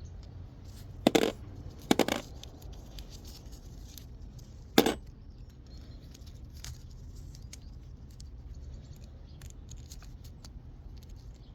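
Hard parts knocked and set down on a hard surface: three sharp clatters, about a second in, at two seconds and near five seconds, with lighter clicks and taps between them.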